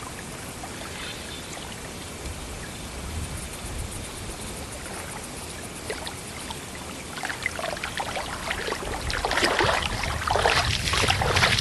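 River water moving along the bank, a steady trickling wash, with louder, irregular splashing and crackling from about seven seconds in.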